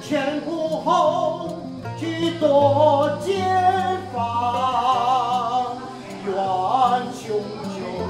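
A voice singing a slow, mournful song in Mandarin over instrumental accompaniment, holding long wavering notes.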